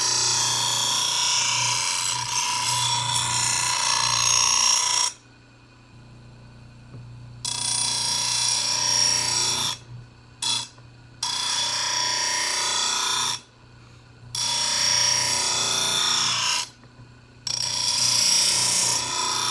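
A grinder grinding the steel edge of a lawnmower blade, a loud, hissing, whining grind. The noise cuts off suddenly four times, for a second or two each time, and then resumes.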